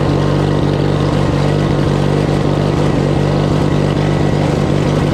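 Engine of a riding lawn mower running steadily at high speed, recorded close on the machine. The engine note holds even, with no revving up or down.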